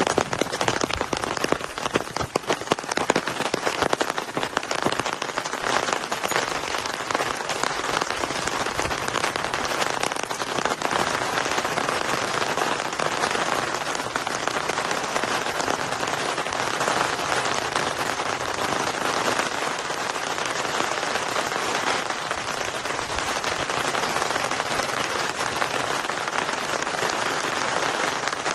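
Heavy rain falling in a steady, dense hiss. In the first few seconds many close drops hit sharply and separately before it evens out.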